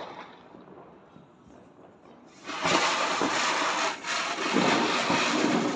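A ground firework catches about two and a half seconds in and sprays sparks with a loud, steady rushing hiss that dips briefly about four seconds in.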